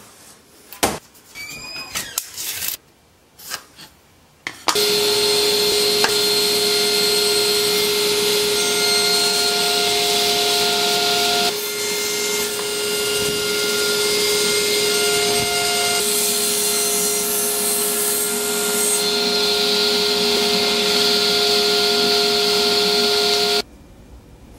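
A few knocks and clicks of a wooden board being handled, then a table saw starts suddenly and runs loud and steady, with a steady hum of several tones, while a 2x4 is pushed through it on a crosscut sled. The saw sound stops suddenly near the end.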